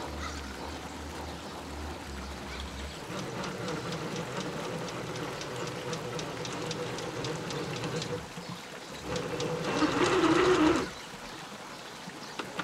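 Motor of a 1/10 scale Traxxas TRX-4 RC crawler (Hobbywing AXE R2 brushless) running as the truck drives over rough ground: a faint steady whine with many small clicks from tyres on rock and gravel. Near the end a louder, noisier burst lasts about two seconds and then drops off suddenly.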